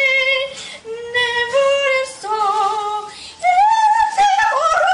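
A girl singing loudly at full voice, holding long notes that climb in pitch, the last one wavering.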